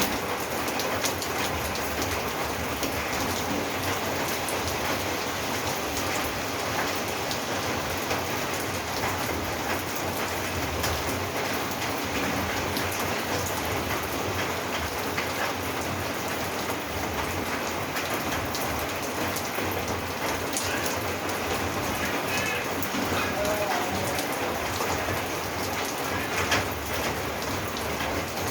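Steady rain falling on a roof, a dense even patter with scattered louder drops.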